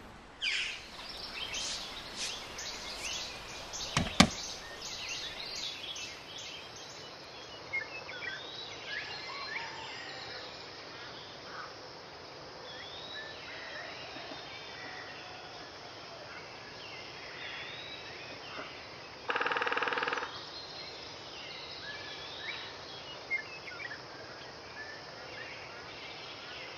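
Outdoor ambience: a steady background hiss with short, scattered bird chirps. A sharp knock stands out about four seconds in, and a burst of noise lasting about a second comes near the two-thirds mark.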